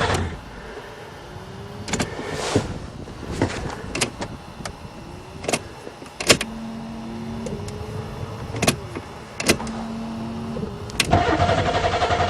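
Starter cranking the Buick Regal's 3.8 V6 stops at the start without the engine catching. A quieter stretch follows with sharp clicks and several short rising whines. About eleven seconds in, the starter cranks again and the engine still does not fire: a no-start that the owner puts down to no spark.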